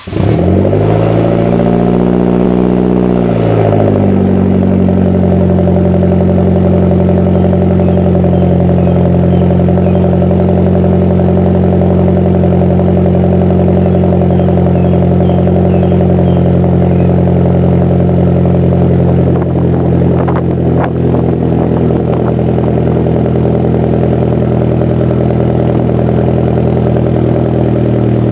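Hyundai Genesis Coupe's turbocharged 2.0-litre four-cylinder, through a Turboxs RS turboback single-exit exhaust, just fired on a cold start. It runs at a raised flare idle, drops about three to four seconds in, then settles into a steady cold idle.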